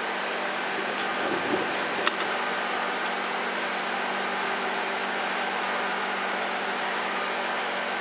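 ED75 AC electric locomotive standing at the platform, its equipment and cooling fans giving off a steady hum with several fixed tones. A single sharp click about two seconds in.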